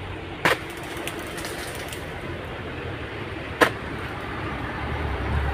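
Two sharp cracks about three seconds apart as a long-handled pole sickle strikes and cuts into an oil palm frond stalk, over a steady rustling background.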